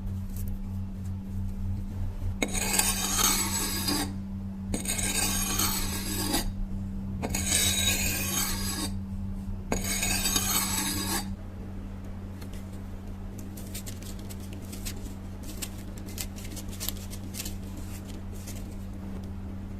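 A knife blade being worked on an abrasive: four long scraping strokes of about a second and a half each, with short pauses between, over a steady low hum, followed by faint light ticks.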